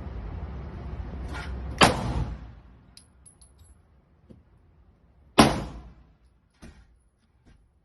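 Two loud gunshots about three and a half seconds apart, each with a short ringing tail, a fainter bang just before the first, and a few small clicks between.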